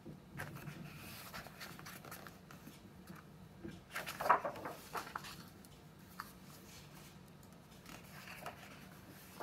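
Pages of a paperback picture book being opened and turned by hand on a wooden table: soft paper rustles and slides, the loudest about four seconds in.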